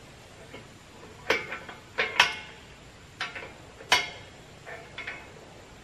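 Steel clanks with a short metallic ring, about six in a few seconds, the loudest near the middle, from a tractor's three-point hitch boom pole and its hitch fittings being shifted by hand.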